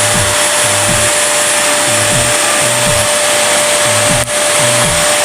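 Vacuum cleaner running steadily, a constant whine over the rush of its airflow, with a brief dip about four seconds in.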